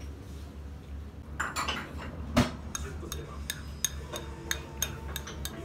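Eating utensils clinking and tapping against a ceramic plate: scattered sharp clicks beginning about a second and a half in, one louder knock around the middle, then a run of quicker taps near the end.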